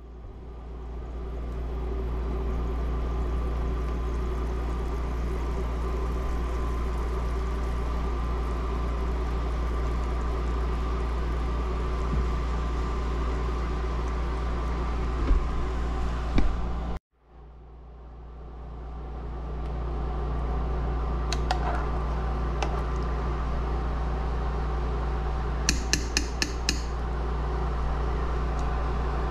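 Steady hum of an induction cooktop with its fan running while a pot of water boils on it. A few light clinks of utensils or pot against pot, with a quick run of them near the end.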